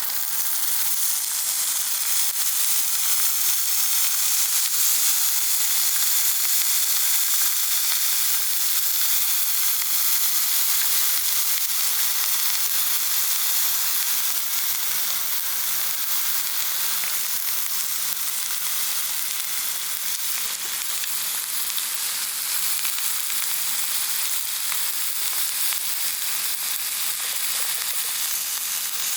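Meat sizzling as it fries in a hot wok: a steady, dense frying hiss.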